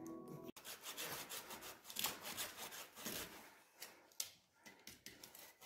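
Small hand saw cutting through a dry branch in quick, rasping back-and-forth strokes that thin out in the second half.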